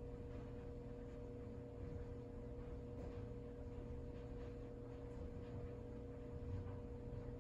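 Quiet room tone: a steady low hum with a couple of steady tones in it, and a few faint soft ticks.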